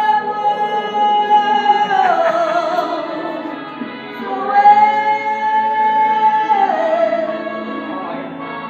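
A man singing, holding two long high notes, each sliding down in pitch at the end.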